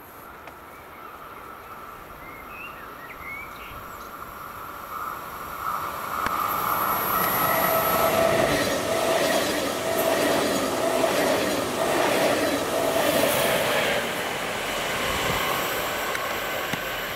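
An electric train approaches and passes, growing louder over the first few seconds and loudest in the middle, with a steady high whine over the rumble and some wheel-on-rail clatter, then fading slightly near the end.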